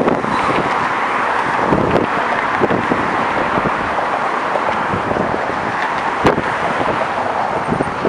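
Steady rush of cars and trucks driving across the bridge roadway right beside the walkway, with a single sharp knock about six seconds in.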